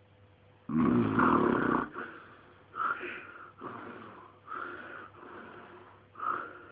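A sleeping man snoring: after a moment of quiet, one long loud snore about a second in, then a run of shorter, weaker snores about one a second, snoring on the in-breath as well as the out-breath.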